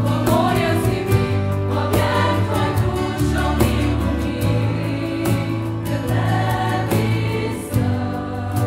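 Girls' youth choir singing a worship song in Slovenian, accompanied by acoustic guitars, bass guitar and cajon.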